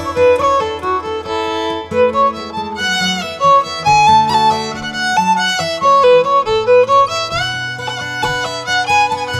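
Instrumental background music: a melody that moves note by note over a steady, rhythmic accompaniment.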